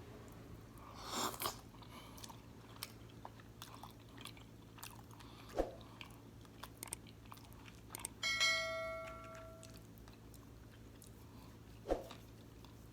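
Close-up eating sounds: chewing and small wet mouth clicks of egusi soup and fufu, with a louder smacking burst about a second in. A brief ringing tone sounds about eight seconds in and fades away.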